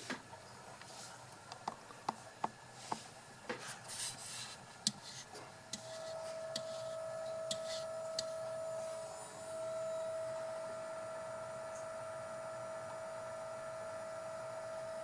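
A few sharp clicks and taps, then from about five and a half seconds in a steady whine from the HW ECM42's drive running with its propeller removed, at the higher power where the noise appears. With no propeller fitted, the whine points away from the propeller as its cause.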